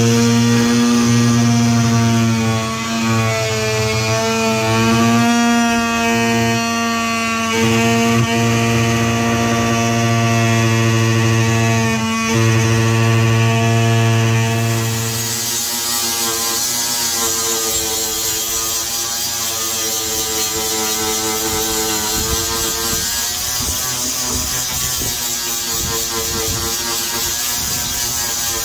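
An electric oscillating multi-tool buzzing as it scrapes old material off a boat hull floor, with a steady hum that dips and rises in pitch as it is pressed in. About halfway through this gives way to a harsher, hissing power-tool grinding sound.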